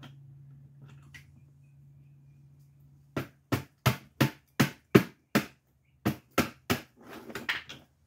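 A run of about ten sharp taps, roughly three a second, starting about three seconds in and ending in a short rattle: a tool striking the Tesla Model S door handle's replacement paddle gear to drive it further down onto its shaft.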